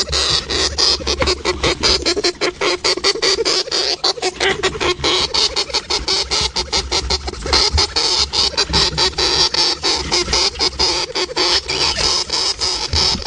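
Hamster making a rapid run of crunching clicks, about six a second, steady throughout, over a low hum.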